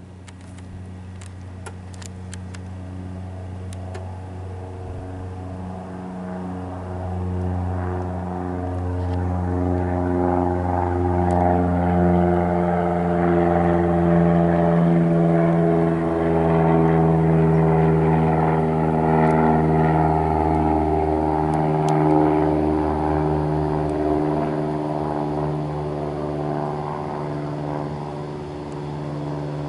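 Cessna 172 Skyhawk single-engine propeller plane flying overhead with a steady drone. It grows louder over the first dozen seconds, is loudest mid-way, then eases slightly as it passes.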